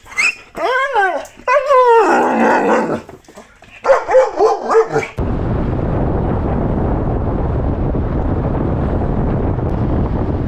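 A dog whining and yelping excitedly, high rising-and-falling cries with a harsher bark among them, over the first half. About halfway through, a loud steady rushing noise takes over.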